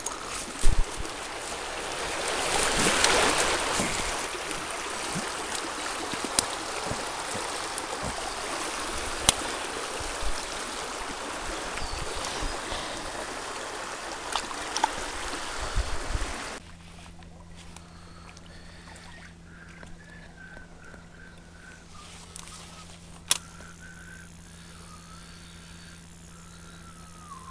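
River water rushing and splashing close by, with scattered knocks and rustles of handling, loudest a few seconds in. About two-thirds of the way through it cuts off suddenly to a much quieter background with a steady low hum and a faint wavering whistle.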